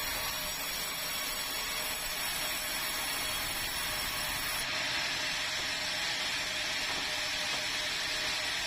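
Sawmill saw running steadily through meranti timber, a constant hiss-like noise with a faint high whine over it that stops about halfway through.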